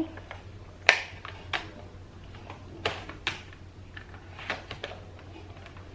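Several sharp plastic clicks and knocks, spaced irregularly about a second apart, from a cordless handstick vacuum being handled as its battery is locked into place, before the motor is switched on.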